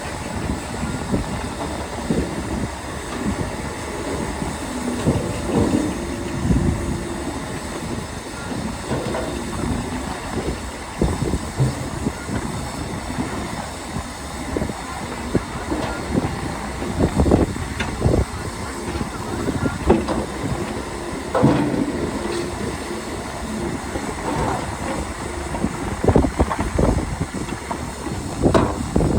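Shantui DH17C2 crawler bulldozer working: engine running steadily under the irregular clanking and knocking of its steel tracks, with an occasional squeal.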